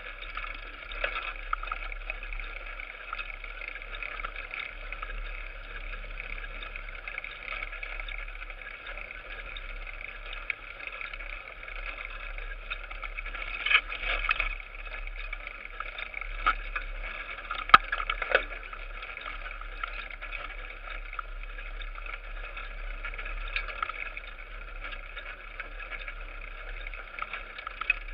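Mountain bike rolling over a rough forest singletrack: a steady rattling rush from the tyres and frame, with a few sharp knocks over bumps, the loudest about two-thirds of the way through.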